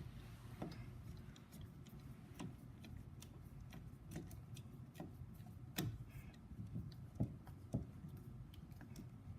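Irregular small clicks and taps of a screwdriver working the chain-tensioning screw and chain on a diamond chainsaw's bar, with a few louder knocks in the second half.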